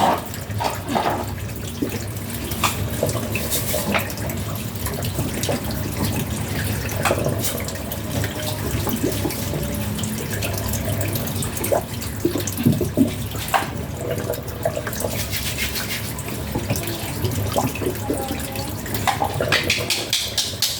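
Water running from a tap, with scattered knocks and clicks as things are handled in it.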